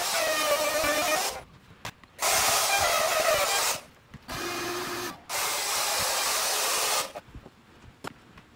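Corded handheld power tool cutting plywood, running in four bursts of a whining motor with short pauses between; the third run is quieter and lower in pitch.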